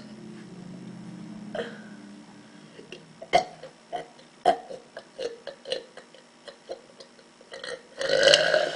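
A young woman burping on purpose: a low drawn-out belch at the start, then a run of short gulping clicks as she swallows air, then a loud, long burp near the end. She calls that last release all the built-up air rather than a real burp.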